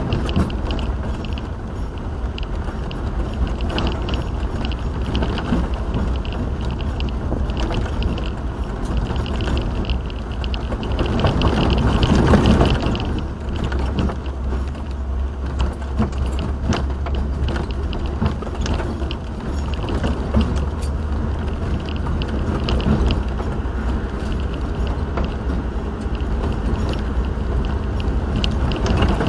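A vehicle driving, heard from inside: a steady low road-and-engine rumble with light rattles and clicks throughout, swelling louder for a couple of seconds around the middle.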